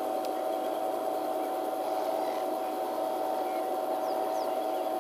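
Steady hiss with a constant mid-pitched hum, and a few faint, short, high bird chirps about four seconds in.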